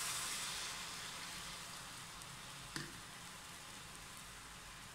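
Water sizzling on sugar in a hot pan just after being poured in, starting a sugar syrup; the hiss fades over a few seconds. A light tap about halfway through.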